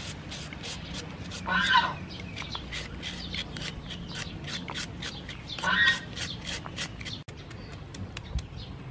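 Julienne peeler scraping through a raw carrot and then a cucumber, quick rasping strokes at about three a second. Twice a bird calls, louder than the scraping.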